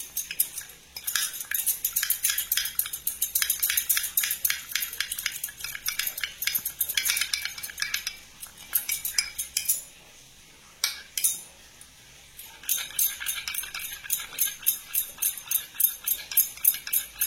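A spoon stirring a thick mix of honey, turmeric, ginger juice and ground black pepper in a small vessel, clinking quickly against its sides. The stirring pauses for about two seconds in the middle, with a couple of single clinks, and then starts again.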